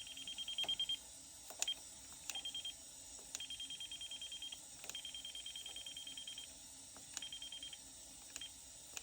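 Ames non-contact voltage detector pen beeping rapidly in short runs that start and stop as it passes over live circuit breakers, with a few sharp clicks in between.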